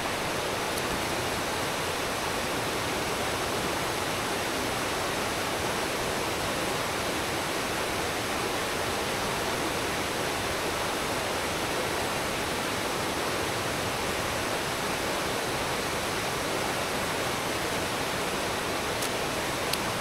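Shallow mountain stream running over rock close by: a steady, even rush of water.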